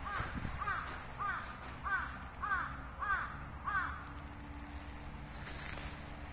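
A crow cawing seven times in an even series, about one caw every 0.6 seconds, stopping about four seconds in.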